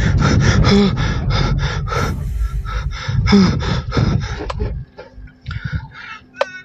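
A man panting and gasping fast and hard in panic, several breaths a second, inside a moving car over low engine and road rumble. The rumble drops away about five seconds in, leaving faint hum and a few last breaths.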